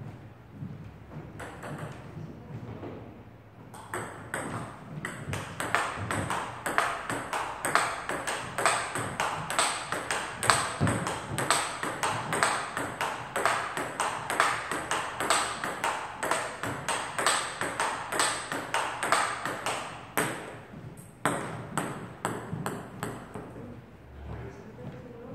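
Table tennis rally: the ball clicking off the rubber bats and the tabletop in a quick, even rhythm of several hits a second. The rally runs from about four seconds in to about twenty seconds, with a few scattered hits before and after it.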